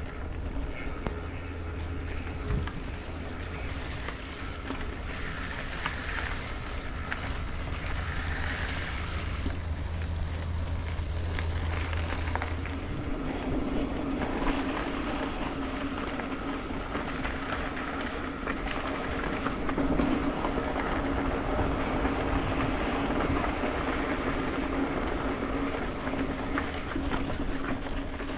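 A steady engine-like hum with wind noise on the microphone. About halfway through, the low hum gives way to a higher steady tone.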